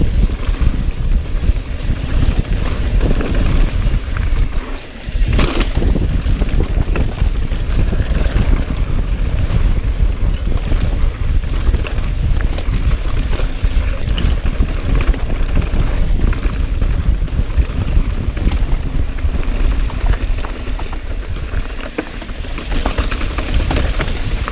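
Wind buffeting a mountain biker's action-camera microphone at speed, with a low tyre rumble and the rattle and clatter of the bike over rough trail. A sharp knock comes about five and a half seconds in.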